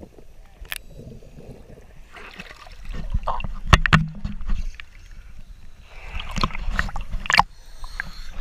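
Lake water sloshing and splashing against a GoPro held at the surface as it dips under and comes back up, with a low rumble and several sharp slaps of water on the camera housing.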